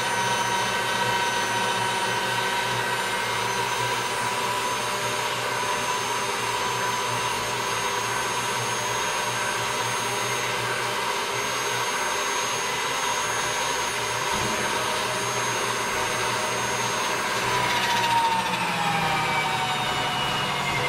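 Electric pasta machine running steadily, its motor whining as the rollers turn to press a sheet of dough, the whine sliding lower in pitch near the end.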